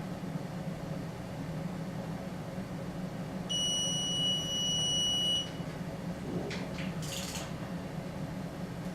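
Digital torque wrench beeping as it reaches its set torque on a cylinder-head bolt: one steady high beep about two seconds long, followed by a few short scrapes of the tool. A low steady hum runs underneath.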